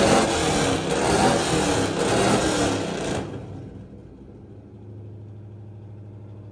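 1989 Pontiac Firebird Formula's V8, open through long-tube headers and an X-pipe with no mufflers or catalytic converters, revved up and down. About three seconds in it drops back to a steady, lumpy idle.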